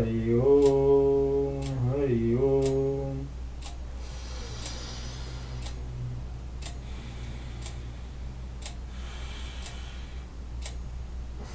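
A man's voice chanting a drawn-out, melodic prayer for about three seconds, then fading out. A clock ticks about once a second throughout, with soft rustling in the quieter stretch.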